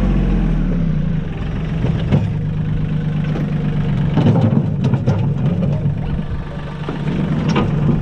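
Compact tractor engine running; its pitch falls in the first second as it slows, then it runs steadily. A few short knocks and scrapes come through over it.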